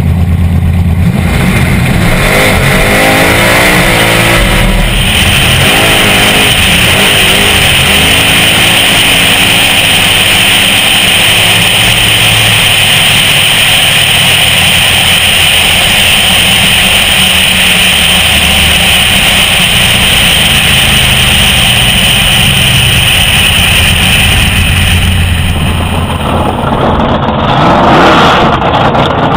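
A drag-racing car's engine at full throttle on a quarter-mile pass, recorded from a hood-mounted camera. The pitch climbs in repeated rising sweeps through the gear changes in the first few seconds, then a steady loud rush of wind over the microphone dominates for most of the run. Near the end the sound changes to the car's engine revving, heard from beside the track.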